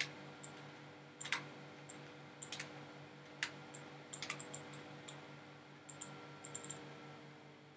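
Scattered clicks of a computer mouse and keyboard, some single and some in short quick runs, over a faint steady hum.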